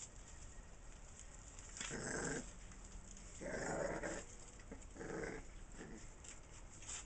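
Month-old blue nose pit bull puppies growling while play-fighting: four short growls, the second the longest and loudest.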